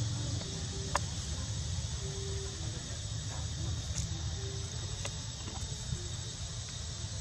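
Steady high-pitched insect chorus of crickets or cicadas, with a low rumble underneath and a few faint clicks.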